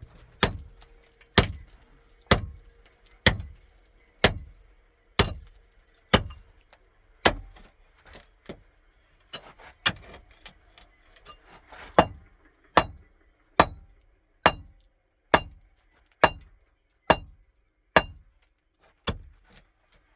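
A hammer striking metal in steady blows, about one a second, some twenty strikes, each with a short metallic ring.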